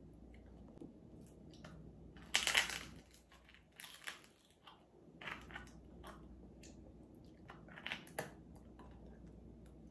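Crisp air-fried pig's ear (tenga ng baboy) being bitten and chewed: a few bursts of sharp, crackly crunching, the loudest a bite a couple of seconds in, then smaller crunches at intervals.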